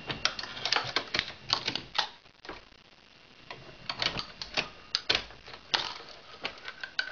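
Hornady 366 Auto shotshell reloading press being worked by hand: an irregular run of sharp clicks and clacks as hulls and components are set in its stations, with a short lull about two and a half seconds in.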